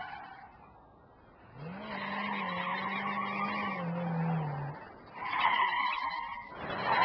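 Car tyres screeching in skids: one screech dies away just after the start, a longer one with a low tone underneath runs from about a second and a half in to nearly five seconds, and a shorter one comes near the end.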